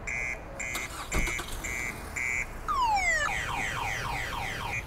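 Car alarm siren played from a Bluetooth speaker hidden under a car, cycling through its tones: a short beep repeating about twice a second, then a single falling whoop about three seconds in, followed by a fast run of warbling sweeps before the beeping returns.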